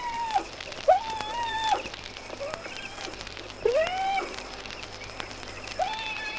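Wild animal calling in a field recording: four drawn-out cries, each sliding quickly up in pitch, holding steady, then dropping away, spaced one to three seconds apart.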